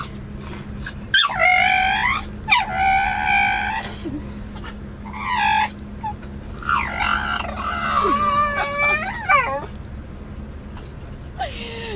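Staffordshire bull terrier 'singing': a string of drawn-out, wavering howls and whines, several calls in a row with pitch sliding up and down. A steady low hum runs underneath inside the car.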